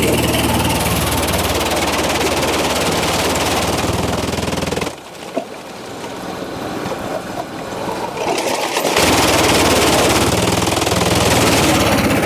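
Sawmill machinery running: a steady engine drone under loud, broad mechanical noise. The noise drops away abruptly about five seconds in and comes back just as suddenly about four seconds later.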